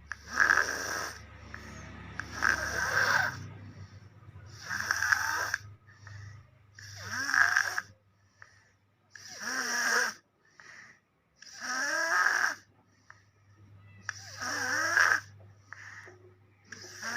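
Sleeping baby snoring, one snore roughly every two and a half seconds, about seven in all; several slide upward in pitch.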